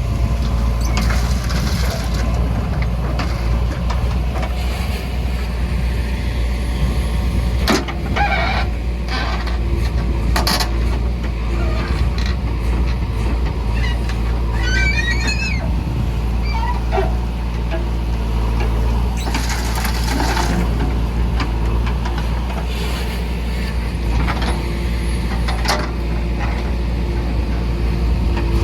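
Diesel engine of a JCB 3DX backhoe loader running steadily under work, with occasional sharp metallic clanks as it digs and loads murum into a truck, and a brief hiss about two-thirds of the way through.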